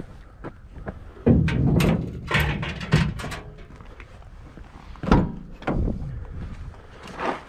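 Gear knocking and rattling against a Ford F-150 pickup, then the door latch clicks and the door opens about five seconds in, followed by more thumps.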